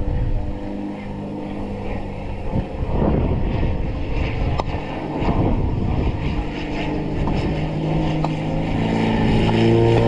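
Engine and propeller of a replica Nieuport biplane droning in flight, growing louder toward the end as the plane approaches, with wind rumbling on the microphone.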